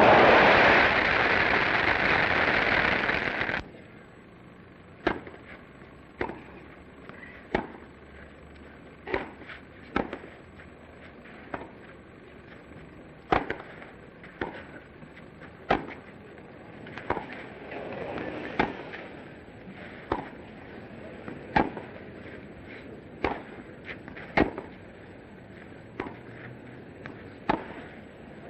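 Crowd applauding for about three and a half seconds, then cutting off. After that comes a tennis rally: sharp pocks of rackets striking the ball, about one every second or so.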